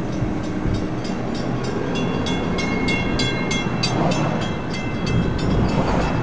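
Grade-crossing warning bell ringing in steady, evenly spaced strikes, about four a second, over the low rumble of coal hopper cars rolling past on the rails.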